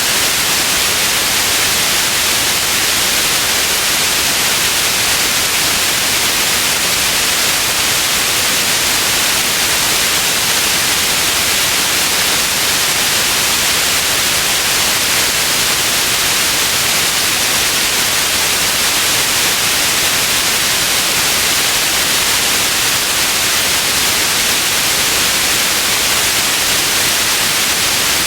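Steady white noise: an even, unchanging hiss, brightest in the upper range, with no breaks or changes.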